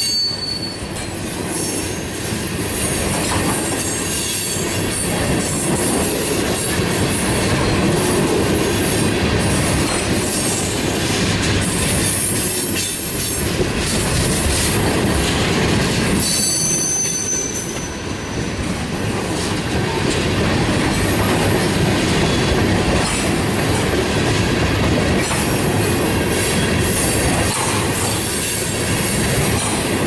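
Railroad tank cars of a freight oil train rolling past: a loud, steady rumble of steel wheels on the rails, with a brief high squeal about halfway through.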